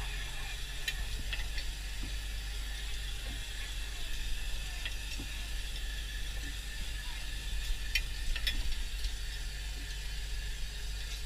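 Longline hauler running as the line with its hooks is drawn in over the sheave and drops into a tub: a steady low hum and hiss, with irregular sharp clicks as hooks pass through.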